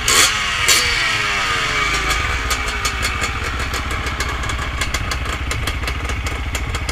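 Several motorcycle engines idling together, with a rev right at the start whose pitch falls away over the next few seconds. Short ticks and clicks run through the steady low engine hum.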